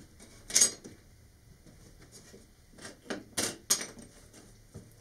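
Small hand tools clacking against a hard tabletop as they are picked up and handled: one sharp clack about half a second in, then a quick run of clacks and taps between three and four seconds in.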